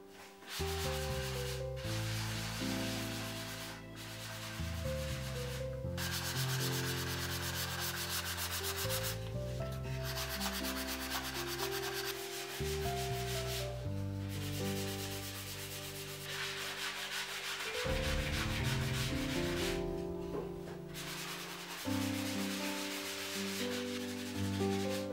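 A hand pad rubbing back and forth over a small wooden tray in repeated strokes, with short pauses between runs of strokes. Soft background music with slow, held notes plays underneath.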